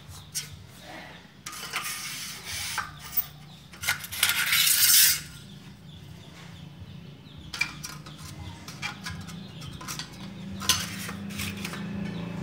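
Aluminium L-profile strips clinking, knocking and scraping against a tile floor as they are handled and laid out, with one louder scrape about four seconds in.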